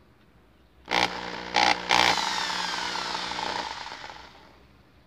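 Small electric drill starting up and drilling through the hard plastic of a car radio faceplate. Two or three louder grinding hits come as the bit bites. Then the motor is released and its whine falls in pitch as it coasts to a stop.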